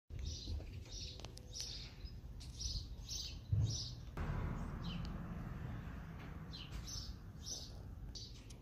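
A bird repeating a short chirp about twice a second over a low outdoor rumble, with a thump about three and a half seconds in and a rush of noise from about four seconds on.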